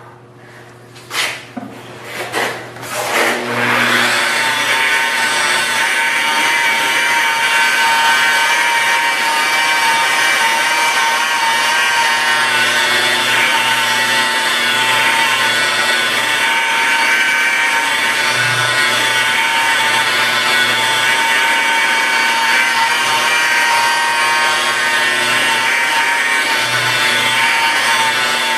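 A few light taps, then about three and a half seconds in an electric rotary polisher starts and runs steadily at about 1500–2000 RPM, its foam pad working rubbing compound into the car's paint.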